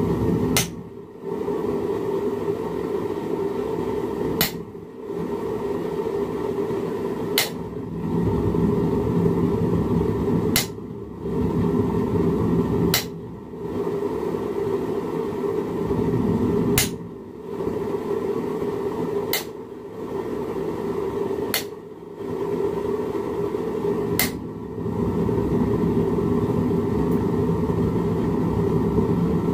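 Hammer blows on a steel chisel held against a metal leaf keychain blank on a bench vise's anvil: single sharp metallic strikes, about eight of them, one every two to three seconds. A steady low hum runs underneath.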